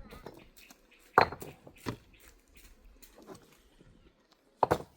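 Three sharp knocks: a loud one about a second in, a lighter one just after, and another loud one near the end.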